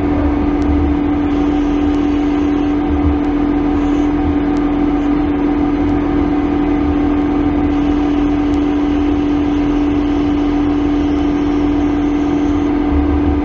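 Hercus PC200 CNC lathe boring brass with a small carbide CCGT-insert boring bar: a steady machine tone with its overtones and a low rumble underneath. The cut runs quietly and smoothly, the sign that the insert is now set on centre height rather than below it.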